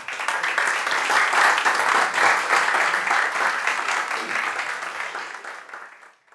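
Audience applauding: dense, steady clapping that slowly thins and fades away near the end.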